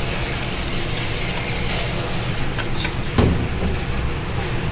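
Hands squeezing and turning spice-coated rohu fish pieces in a metal bowl, with a knock about three seconds in, over a steady hiss.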